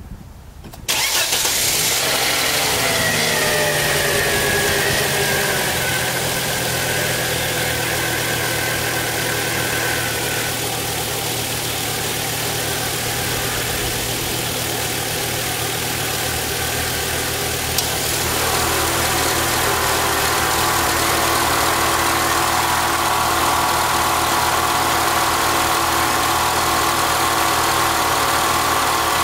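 A 1997 Volvo's engine starts, running fast at first and settling down to a steady idle over several seconds. About eighteen seconds in there is a click as the A/C is switched on, and an added noise joins the idle, the noise the owner says the A/C causes.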